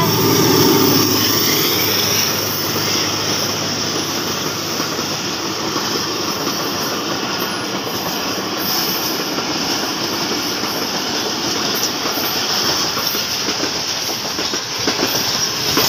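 Passenger train passing close by: a diesel locomotive goes past at the start, then the coaches roll by with a steady rumble and clickety-clack of wheels on the rail joints.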